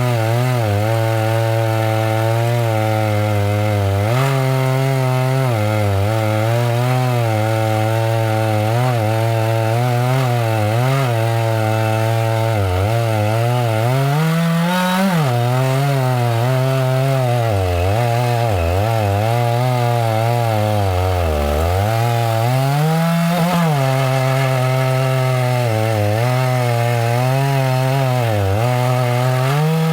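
Chainsaw running hard while cutting wood, its engine note dipping and recovering again and again as the chain loads up in the cut, sagging deepest about twenty seconds in before climbing back.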